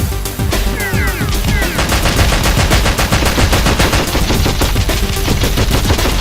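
Rapid automatic gunfire sound effects, many shots a second and sustained, laid over background music, with a few brief falling whistles about a second in.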